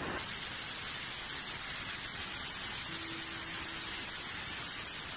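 Heavy rain pouring down onto a corrugated roof: a dense, steady hiss.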